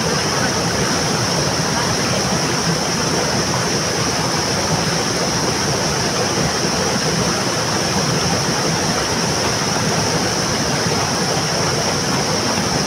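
Mountain stream rushing steadily over rocks: an even, unbroken noise with a constant high hiss over it.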